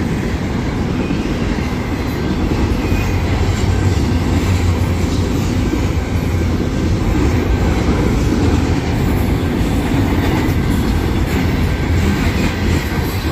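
Freight cars of a Union Pacific manifest train rolling past: a steady rumble of steel wheels on the rails.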